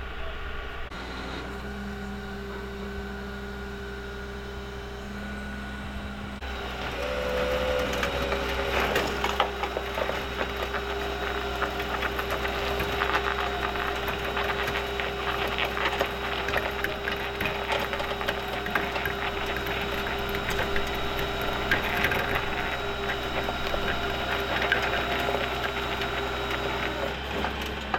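Rollback tow truck's engine running steadily with a constant hum. From about six seconds in, dense crackling and crunching comes in over it and continues.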